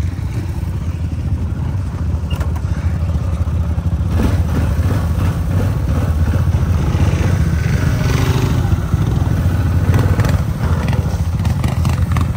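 ATV (four-wheeler) engine running, revving harder and louder from about four seconds in.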